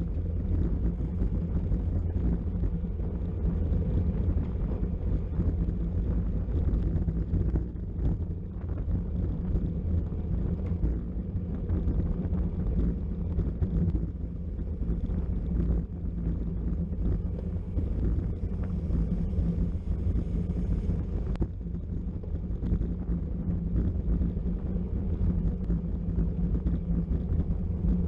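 Wind buffeting the microphone of a camera riding on a racing bicycle at speed: a steady low rumble with no break.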